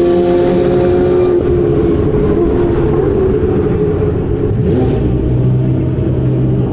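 Ferrari 488 Challenge race car engines running on track. One engine note slides slowly lower over the first second or so, and a rising sweep comes about five seconds in.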